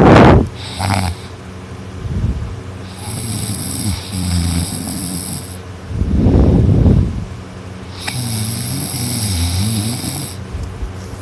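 A sleeping person snoring loudly with a high pitch: a short loud snort at the very start, then two long snores about three and eight seconds in, with a heavy breath between them.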